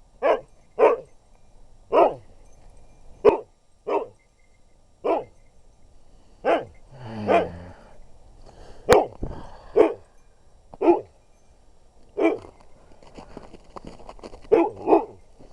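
Husky dog barking over and over, short single barks about a second apart with a few longer gaps, and one longer drawn-out woo about seven seconds in.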